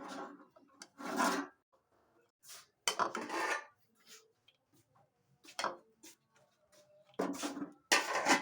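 A spoon scraping cooked corn out of a pan into a bowl: about five short, rough scrapes at uneven intervals.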